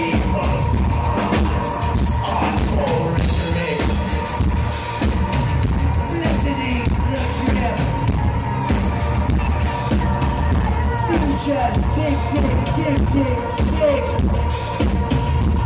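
Live industrial music played by a band in concert: loud and dense, with a pounding drum beat and heavy bass throughout.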